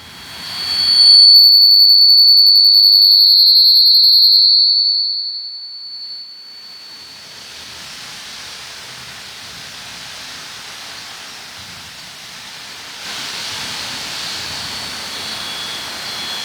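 Microphone feedback through a PA speaker: a loud, steady, high-pitched howl starts about a second in and fades out after about four seconds. A steady hiss of amplifier noise follows and grows a little louder near the end. The player wonders whether the speaker is turned up too loud.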